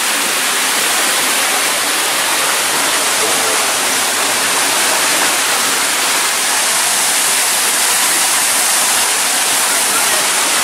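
Rushing water: a loud, steady hiss of falling and splashing water with no breaks.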